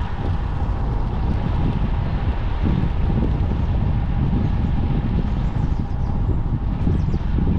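Wind buffeting a GoPro's microphone on a moving road bike: a steady, fluttering low rumble.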